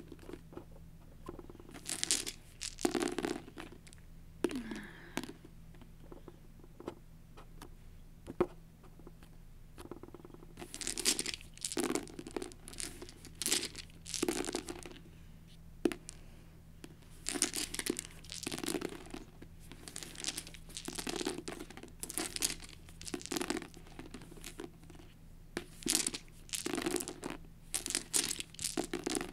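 A handful of eight plastic six-sided dice being scooped up, shaken in the hand and rolled onto a book, in repeated bursts of rattling and clacking.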